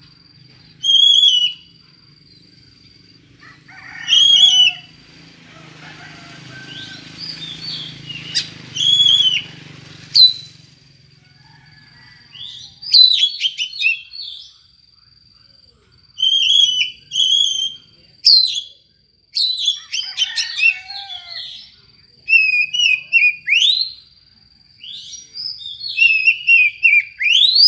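Oriental magpie-robin (kacer) singing: short, varied whistled phrases with quick rising sweeps and chattering notes, in bursts with pauses between them. A steady high thin tone runs underneath, and there is a low rumble in the first half.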